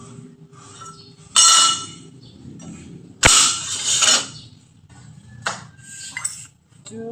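Metal clinking and clanking: separate sharp metallic strikes that ring briefly, the sharpest about three seconds in, as metal parts or tools are handled.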